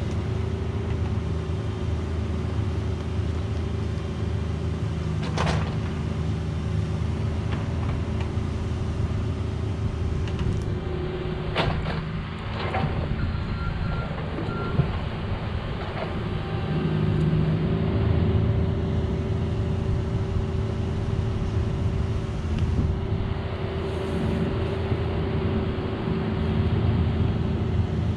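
Cat 304 mini excavator's diesel engine running steadily at idle, with a few sharp knocks around the middle.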